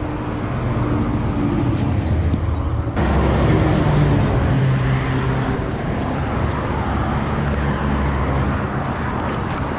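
Road traffic passing close by: car engines and tyre noise, a steady rumble with low engine hum that shifts slowly, changing abruptly about three seconds in.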